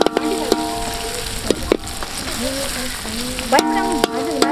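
Onions, tomatoes and green chillies sizzling in hot oil in an aluminium kadai, with a perforated metal skimmer clicking and scraping against the pan as the mix is stirred, several sharp knocks spread through. A pitched background sound of held tones comes in near the start and again near the end.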